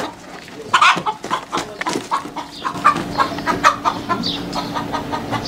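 A chicken clucking and squawking in a rapid string of short calls while it is being chased to be caught, with scattered knocks and scuffles.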